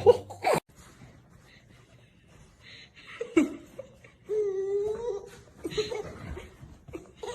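A person laughing, with a held, slightly wavering whining cry about four seconds in.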